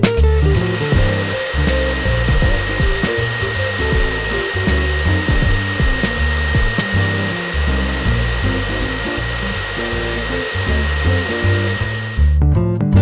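Pet grooming dryer blowing air through its hose and nozzle into a dog's coat: a steady rushing of air with a high whine. It cuts off suddenly about twelve seconds in.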